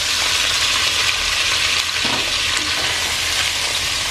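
Diced bacon sizzling steadily as it fries in a hot nonstick pot, stirred with a silicone spatula.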